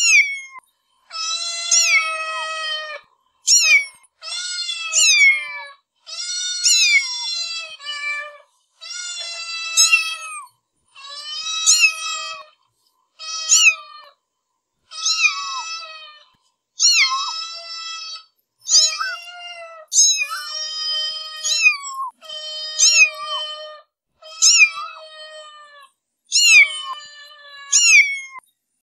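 A cat meowing over and over, one meow every second or two, each a clear pitched call that often opens with a quick downward swoop, with clean silence between calls.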